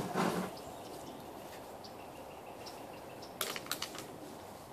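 A quick cluster of light clicks and knocks about three and a half seconds in, from a plastic bottle being handled, over quiet outdoor background.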